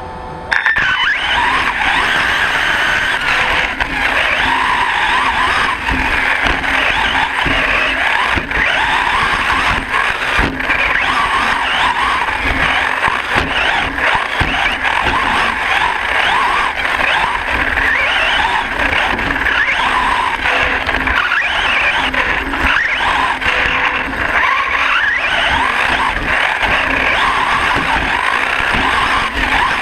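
Onboard sound of a Hyper 10SC 4x4 short course RC truck racing: its Castle 3800KV brushless motor whines, rising and falling in pitch with the throttle, over constant rattling and frequent knocks from the bumpy track. The sound starts suddenly about half a second in, as the truck launches off the line.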